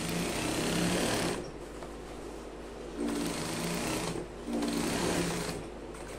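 Industrial sewing machine stitching a trouser leg seam in three runs: one ending about a second and a half in, then two shorter runs about three and four and a half seconds in, with pauses as the fabric is repositioned.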